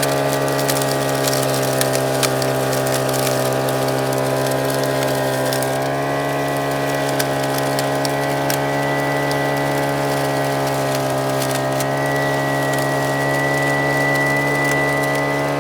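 Gold-prospecting vac pac running steadily, its motor giving an even drone, while gravel and small rocks rattle and click as they are sucked up through the hose.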